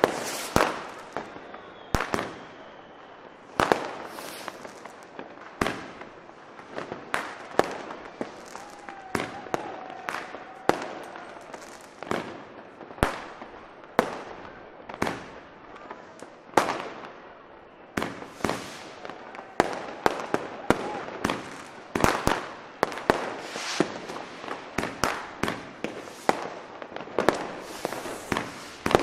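Street fireworks: firecrackers and bangers going off one after another at irregular intervals, often more than one sharp bang a second, over a steady background of smaller pops and crackling.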